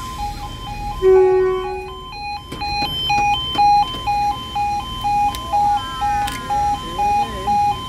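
Level crossing's two-tone warning alarm sounding, a low and a high tone alternating evenly about twice a second. About a second in, a louder single held tone sounds for roughly a second over it.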